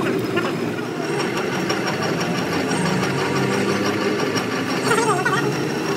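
Drill press running steadily, its twist drill boring into a steel truck trunnion hub. The machine gives a steady hum with a faint high whine above it.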